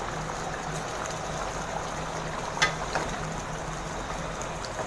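Goat liver pieces bubbling in a masala gravy in a pan, a steady sizzle, with a wooden spatula knocking against the pan twice a little past halfway.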